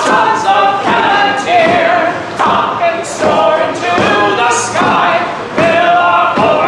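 A man singing a song unaccompanied, a cappella, with a few longer held notes.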